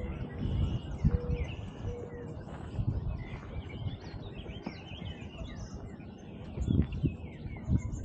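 Several songbirds singing and chirping at once: many short, overlapping high calls and trills. Irregular low thumps and rumble on the microphone run underneath, loudest about a second in and again near the end.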